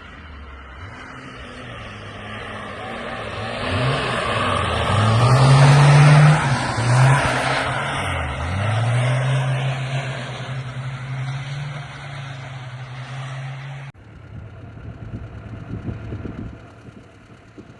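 A classic Zhiguli rear-drive car's four-cylinder engine revs hard while drifting on snow. Its pitch climbs and drops a few times, then holds at high revs, with a rushing tyre-and-snow noise loudest in the middle. The sound cuts off suddenly after about fourteen seconds, and a quieter engine is heard after that.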